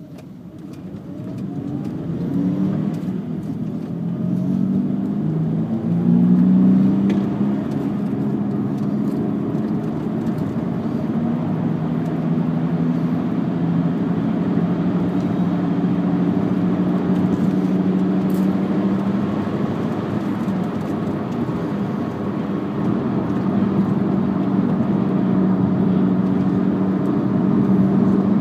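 Volkswagen Jetta on the road, picking up speed over the first few seconds and then cruising with a steady low hum. The owner thinks the hum is a bad rear passenger-side wheel bearing.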